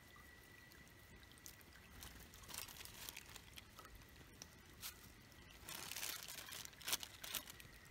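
Faint rustling and crinkling of a small plastic bag as seasoning powder is shaken out of it onto a raw fish, with a few louder crinkles about six and seven seconds in.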